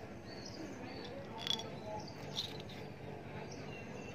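Faint high-pitched chirping in the background, with two short sharp clicks about a second apart near the middle.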